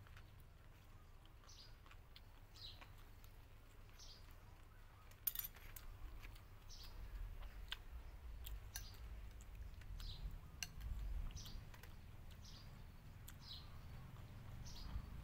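A bird repeating a short, high, falling chirp about once a second. Light clicks of a metal spoon against a bowl come between the chirps, with one sharper, louder click about five seconds in.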